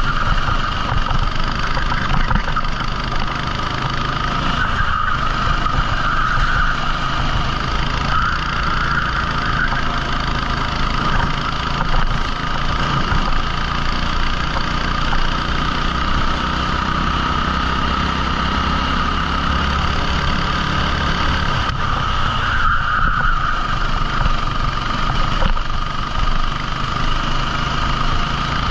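A 14 hp rental kart engine running steadily, with a few brief swells in level.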